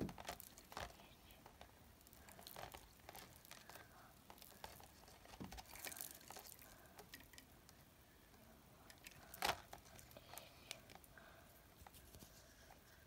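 Faint clicking and rustling of plastic bead necklaces being handled, with scattered small clicks and one sharper click about nine and a half seconds in.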